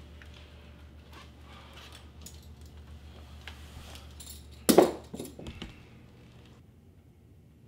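Leather belt being pulled out of trouser loops, its metal buckle clinking, with cloth rustling; a sharp clatter about five seconds in is the loudest sound, followed by a few smaller knocks.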